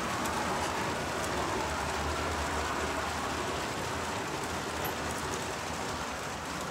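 Steady running sound of a LEGO model train: a 1:48-scale GTEL locomotive's LEGO train motors and wheels rolling on plastic track, heard together with the locomotive's onboard sound decoder playing through a small speaker. The locomotive is under heavy load, pulling a long train of containers and boxcars up a grade.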